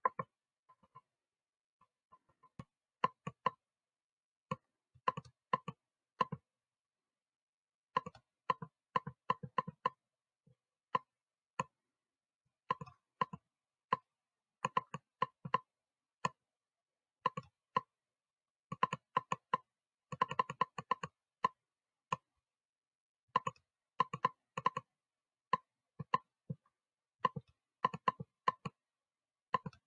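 Computer mouse and keyboard clicking in quick runs of several clicks with short pauses between them, densest about twenty seconds in: the sampling and dabbing clicks of clone-stamp photo retouching.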